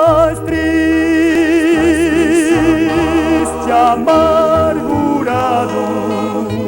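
Brazilian gospel song playing between sung lines: held melody notes with strong vibrato over a steady bass line.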